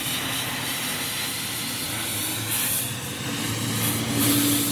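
Oxy-fuel cutting torch hissing steadily as its flame works on the steel spindle of a truck axle housing. A low steady hum comes in about three seconds in.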